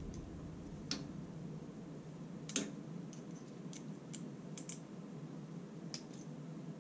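Small metallic clicks from an Allen key working a screw in a bandsaw roller guide assembly and the steel guide parts knocking together as the guide is loosened from its post. The clicks are light and scattered, about eight in all, the sharpest about two and a half seconds in, over a faint steady hum.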